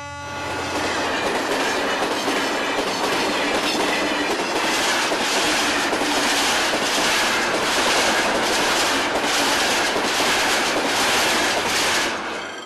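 Passenger train passing close by at speed: loud, steady wheel-on-rail noise with a regular clickety-clack of the wheels over the rail joints. It fades as the last coach goes by near the end.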